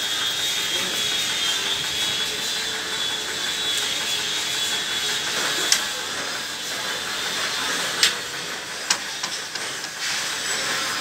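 A steady hiss with a faint high whine, and three sharp clicks in the second half from a wooden hanging cradle and its metal chains being handled.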